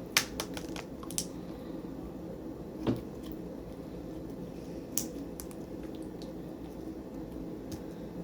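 Slime being stretched and squeezed by hand, giving small sticky clicks and pops: a quick run of them in the first second, then a few more spaced out.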